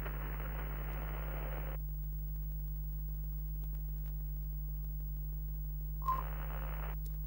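A steady low electrical hum, in the manner of an old television set. For the first two seconds a spell of static hiss lies over it, and about six seconds in a shorter spell of hiss opens with a brief beep.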